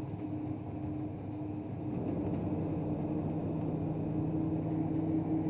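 Marine air-conditioning unit running: a steady mechanical hum with a constant tone, joined by a second, lower steady tone about two seconds in.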